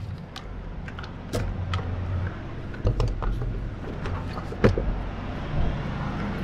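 Diesel semi-truck engine idling with a steady low rumble, under a string of sharp clicks and knocks, the loudest about four and a half seconds in.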